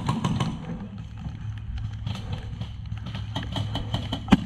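Airsoft gunfire: a rapid string of sharp ticks, about seven a second, that stops about half a second in, then a single loud sharp shot near the end as an HPA airsoft rifle is brought up to aim.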